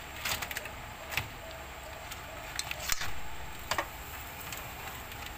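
Hard crab shells clacking and knocking against each other and the metal pot as raw blue swimmer crabs are put into the sauce. There are several sharp, irregular clacks, bunched about a second in, at about three seconds, and shortly after.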